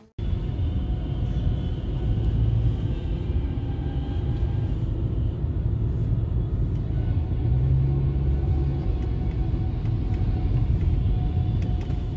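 Steady low rumble of a moving car's engine and tyres heard from inside the cabin.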